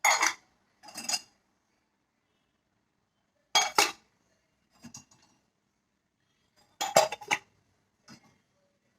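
Washed dishes and utensils clinking and knocking as they are lifted out of a dishwasher rack and set down: a handful of separate knocks, some doubled, with brief ringing.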